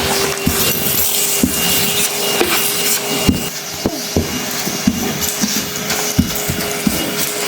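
Henry Cordless vacuum cleaner running with a steady hum and hiss as its floor tool works over a dirt-covered rug, with scattered irregular clicks from debris being picked up.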